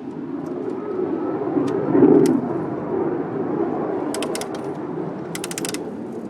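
A motor vehicle running close by: a low rumble that grows to a peak about two seconds in and then slowly fades, as if passing. A quick run of sharp clicks comes near the end.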